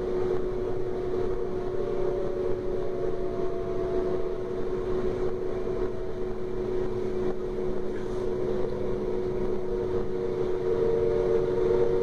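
DB Class 425 electric multiple unit under way, heard from on board: a steady running sound with a held electric whine from the traction equipment. A second, higher tone comes in more strongly near the end.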